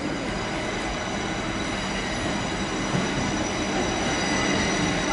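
Electric suburban train approaching a station platform on curved track: a steady rumble of wheels and running gear with a thin high-pitched whine over it, growing slowly louder as it draws near.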